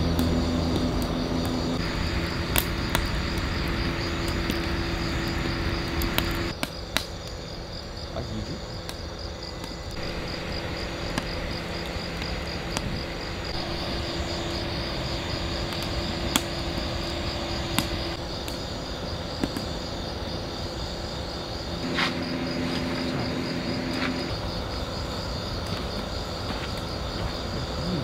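Crickets chirping in a steady, continuous trill, with a low hum in some stretches and occasional light clicks.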